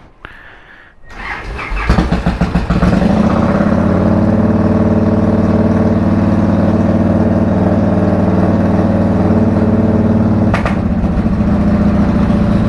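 Victory Hammer's V-twin motorcycle engine starting up: it catches unevenly about a second or two in, then settles into a steady idle. A brief click near the end.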